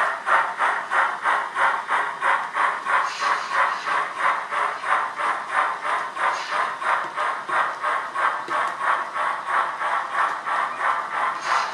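Sound-decoder steam locomotive exhaust from a model BR Beyer-Garratt (Loksound V4 through a sugar-cube speaker): steady chuffs about three a second as the engine pulls its train. A brief hiss comes in now and then.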